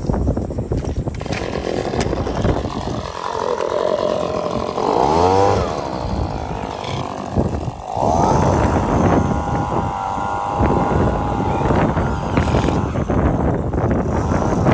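A motorised power tool whines, speeding up and slowing down several times near the middle, then runs at a steadier pitch through the second half, over wind buffeting the microphone.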